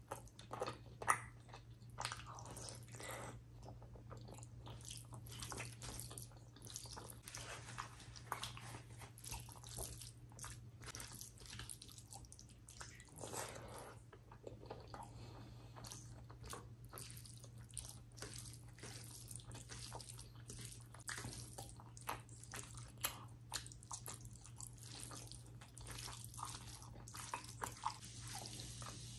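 Close-up eating sounds: fingers squishing and mixing rice with chicken liver curry gravy, and chewing with wet mouth clicks and smacks, many short clicks throughout. A steady low hum runs underneath.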